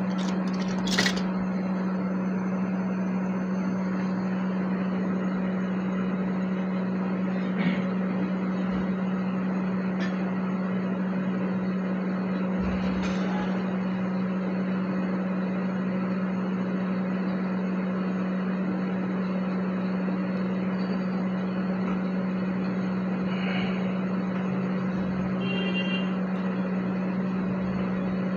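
Hot air rework station blowing steadily, a constant hum with airflow hiss, while glue is cleaned off a phone board where the RAM chip was removed. A light click about a second in and another about eight seconds in.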